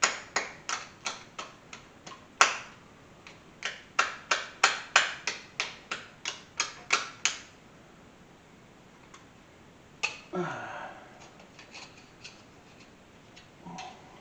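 Hand scraper working quick strokes across a greasy cast-iron engine block, about four sharp scrapes a second, knocking caked grease and dirt loose. The strokes stop about seven seconds in. After a pause there is one longer scrape and a few light taps.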